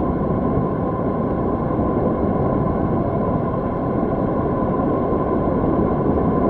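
Steady wind rush and tyre-on-asphalt noise from a road bike coasting downhill at about 40 km/h, picked up by a bicycle-mounted camera, with a thin steady tone running through it.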